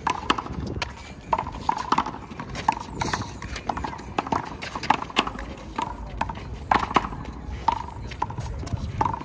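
Handball rally: a small rubber handball slapped by hand and smacking off the wall and court, sharp ringing pops about two a second at an uneven pace.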